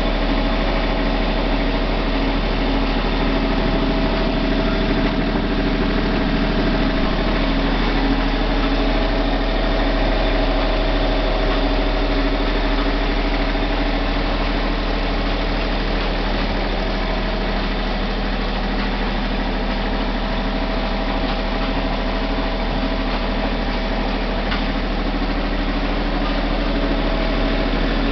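Freshly rebuilt Northern Lights diesel generator set running steadily at a constant speed.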